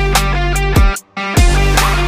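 Background music: an electronic track with deep bass hits that drop in pitch about every second and a plucked, guitar-like line. The music cuts out for a moment about a second in, then comes back with a bass hit.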